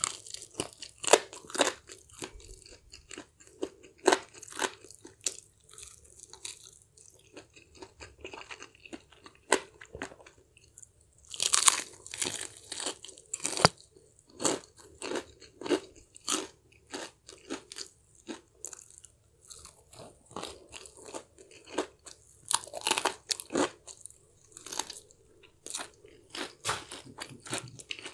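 Close-miked crunching and chewing of crispy fried chicken: many crackly bites into the coating in irregular bursts, densest about twelve to fourteen seconds in.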